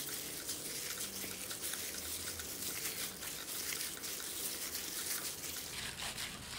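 A gloved hand squishes and kneads grated pumpkin and grated young coconut through a wet rice-flour and coconut-cream batter in a stainless steel pot. It makes a continuous run of small, irregular wet squelches.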